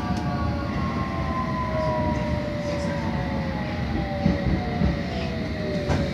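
London Underground S7 Stock train heard from inside the carriage: a steady rumble of wheels on rail, with the traction motors' whine in several tones sliding down in pitch as the train slows. A sharp knock comes about four seconds in.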